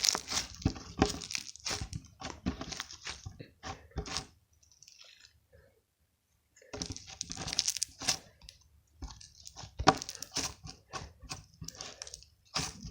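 Slime being squished and worked with the fingers close to the microphone: rapid wet clicks and pops, stopping for about two seconds midway.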